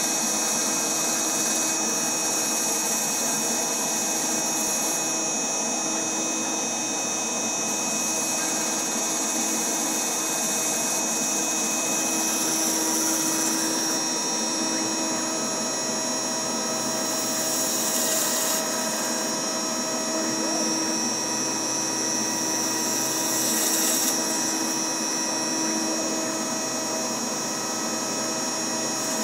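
Spindle of a home-built CNC router mill running steadily with a high whine while its bit cuts lettering into EPS foam; the hiss swells briefly a few times.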